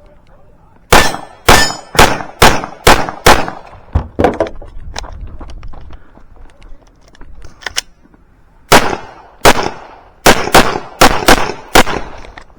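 Pistol fire during a timed stage: a rapid string of about eight shots in the first few seconds, a pause, then a second quick string of about seven shots.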